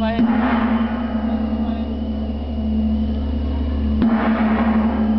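A large gong on a Chinese-style ship float struck twice, once just after the start and again about four seconds later, each stroke ringing on long after.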